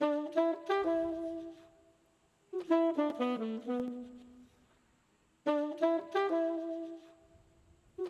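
A short horn phrase, saxophone-like, from a neo soul sample kit, auditioned on its own without drums. It starts again about every two and a half to three seconds, and each pass fades out in a tail.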